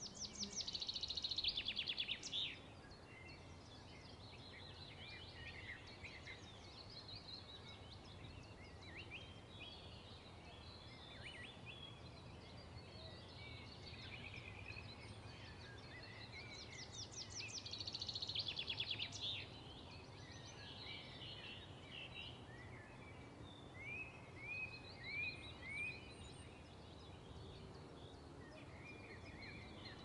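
Songbirds calling and singing: scattered chirps and twitters throughout. A loud, rapid trilling song comes at the start and again a little past halfway, and four short chirps in quick succession come later on.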